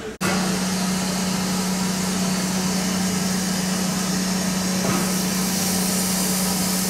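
Standing steam tank locomotive giving off a steady hiss with a constant low hum underneath, and a single faint click about five seconds in.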